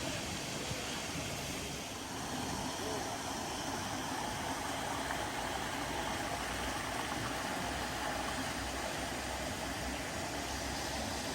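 Steady street traffic noise with vehicle engines running, growing slightly louder about two seconds in.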